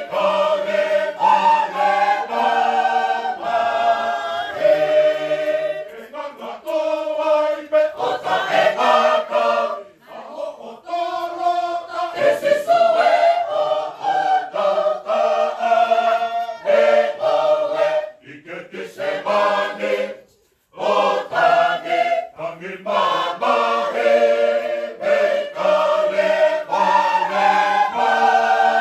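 Tongan church choir singing a religious anthem a cappella in full harmony, with a short break between phrases about twenty seconds in.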